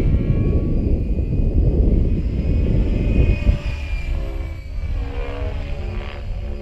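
Gaui X5 electric RC helicopter flying overhead: its motor whine and rotor blades, the pitch shifting up and down as it manoeuvres. Strong wind buffets the microphone, loudest in the first half.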